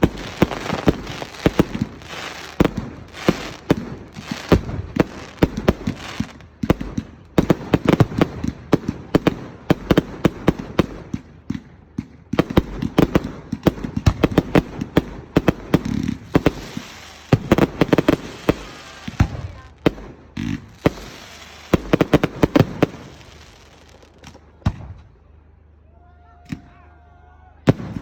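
Fireworks display: a dense, rapid run of bangs and crackles from exploding fireworks. It thins out and goes quieter about 24 seconds in, and the bangs pick up again near the end.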